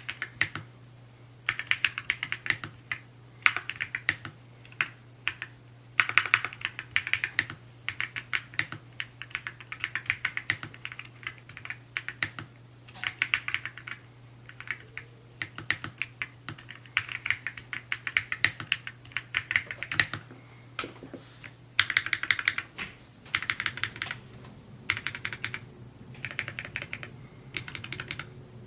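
Typing on an Evo80 mechanical keyboard: rapid runs of keystroke clacks in bursts of a second or two, with short pauses between words and phrases. A faint steady low hum sits underneath.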